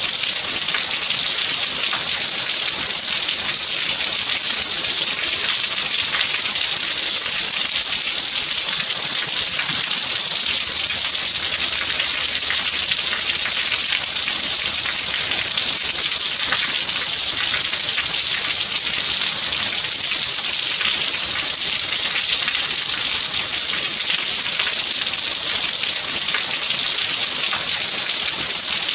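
Steady rain: an even, high hiss with scattered ticks of individual drops.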